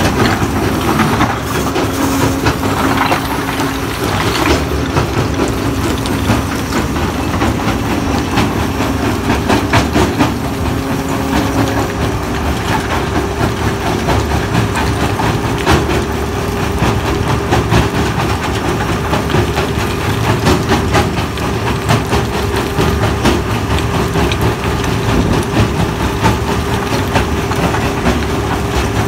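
Herbst HAC 700 tractor-PTO-driven stone crusher running under load: a steady mechanical hum with a constant dense rattle and cracking of stone being crushed and falling off its conveyor.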